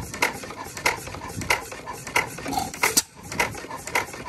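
1908 Fairbanks Morse 4 hp Model T vertical stationary engine running on its first run, giving a sharp metallic clack about every two-thirds of a second.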